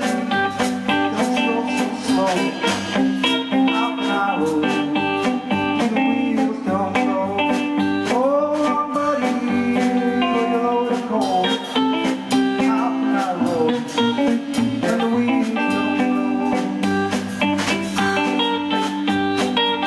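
Instrumental break of a country-blues tune: an orange hollow-body electric guitar plays a picked solo with bent notes, over a drum kit keeping time with cymbal and snare strokes.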